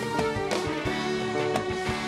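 Live band music: drum kit hits keeping the beat over guitar, bass guitar and held chords.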